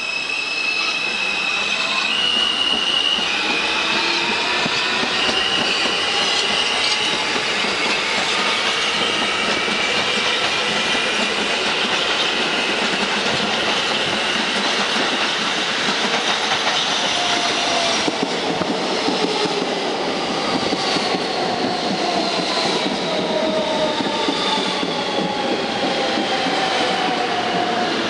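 New York subway R160 trains: one pulls out with its traction motors whining in stepped tones that rise in pitch over rumbling wheels on rail. A second train, an R160B Siemens, then arrives and brakes to a stop, its motor whine falling in pitch.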